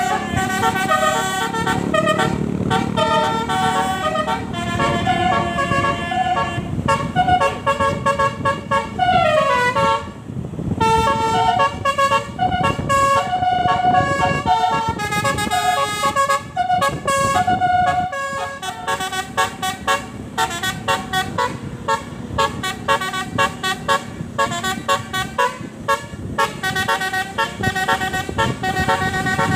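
Tour bus's Basuri telolet horn playing a melody of stepped multi-tone notes, with a falling glide about ten seconds in. An engine rumble runs underneath.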